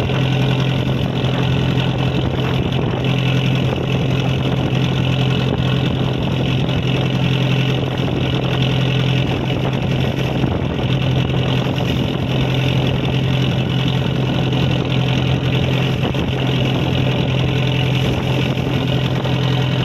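A fishing boat's engine running steadily at an even pace, with a strong low hum.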